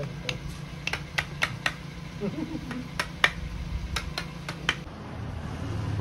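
Mallet tapping a carving chisel into a wooden figure: a dozen or so sharp, irregular taps over about four and a half seconds, stopping shortly before the end, over a steady low hum.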